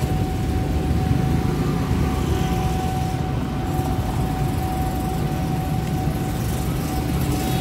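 Steady rumble of street traffic, with a thin steady whine held throughout.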